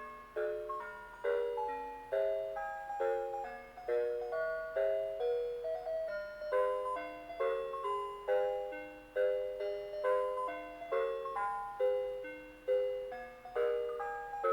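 Christmas tune from the Christmas Fantasy Wonderland Skaters Pond musical decoration, played as chime-like notes and chords that strike and fade in a steady, even beat.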